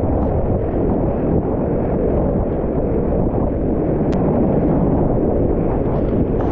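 Whitewater rapids rushing loudly and steadily around a kayak, heard from a camera just above the water. There are splashes of spray near the end.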